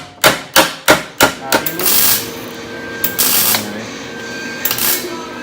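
Steady hammering, about three sharp blows a second, stops about a second and a half in. Hissing, clattering shop noise follows.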